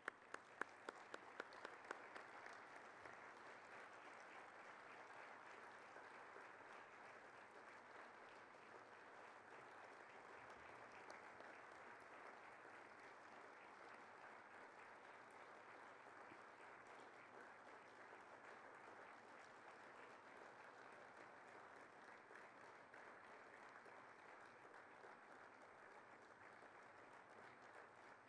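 An audience applauding steadily and fairly faintly, opened by a few sharp, louder single claps in the first couple of seconds.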